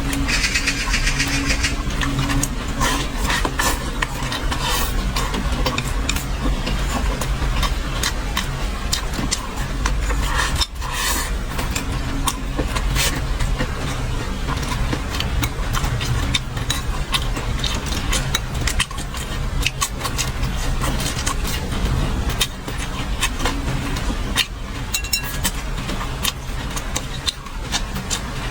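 Close-up chewing and crunching of crisp fried food, a stream of irregular sharp clicks, over a steady low hum that runs underneath throughout.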